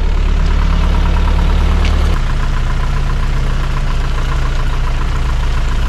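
Land Rover's engine running steadily at low revs while the vehicle creeps down a steep, slippery track, the engine turning the wheels and holding it back with the brake only lightly on. The drone changes pitch suddenly about two seconds in.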